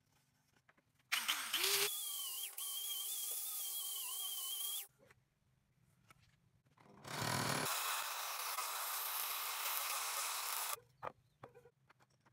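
Electric angle grinder running in two bursts, each starting and stopping abruptly. From about a second in, for some four seconds, it gives a steady high whine that wavers slightly. From about seven seconds to nearly eleven it gives a rougher grinding rush, as when it works against wood.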